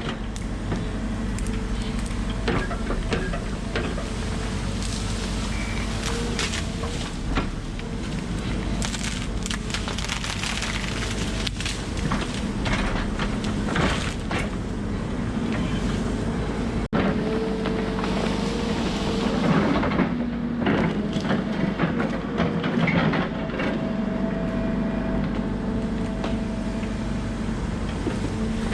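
Volvo 140 excavator's diesel engine running steadily under load, with wood cracking and snapping again and again as trees and brush are pushed over and broken.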